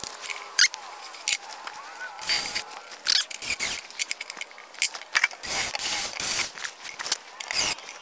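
Handling noise from fitting an RFID lock reader and its small hardware onto a plywood panel: irregular clicks, taps and short scraping rustles, the busiest in the second half.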